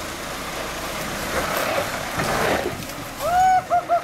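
A four-wheel-drive wagon crawling down a rock step, its tyres grinding over rock. Near the end come four loud, short, high squealing notes, the first the longest and the last sliding down in pitch.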